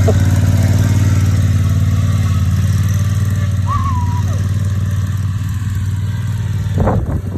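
Ride-on lawnmower engine running steadily with an even hum.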